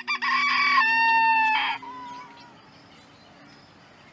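A rooster crowing once: a loud cock-a-doodle-doo just under two seconds long, trailing off into a faint tail.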